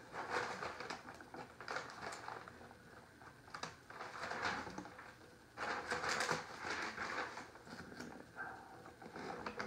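A felt-tipped plastic squeegee rubbing and scraping over self-adhesive vinyl film in short, uneven strokes, pressing the film down onto a board, with the film's peeled-back paper backing rustling; the strokes are loudest about six seconds in.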